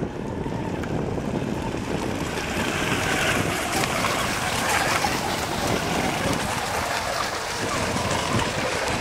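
Radio-controlled catamaran race boats running fast across the water, their motors and spray a steady rushing noise that grows louder from about two seconds in, with wind buffeting the microphone.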